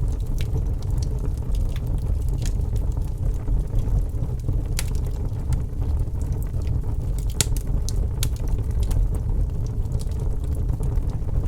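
Fire crackling: a steady low rumble of burning with irregular sharp pops and snaps scattered throughout.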